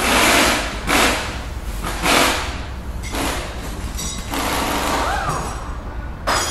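Sound effects of an animated logo sting: several loud rushing sweeps about a second apart, then a sharp hit near the end.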